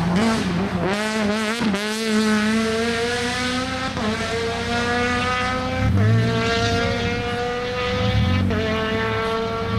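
Rally car engine revving hard, its pitch wavering at first, then climbing as it accelerates through the gears, with sharp drops at upshifts about four, six and eight and a half seconds in. A second, lower and uneven engine note runs underneath from about six seconds in.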